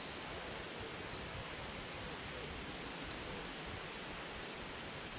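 Steady outdoor background noise, an even hiss with no distinct events, with a few short high bird chirps in the first second or so.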